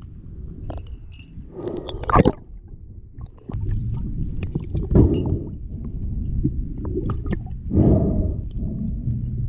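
Muffled underwater noise picked up by a camera under water: a steady low rumble with water sloshing and gurgling, and louder gurgling rushes about two, five and eight seconds in.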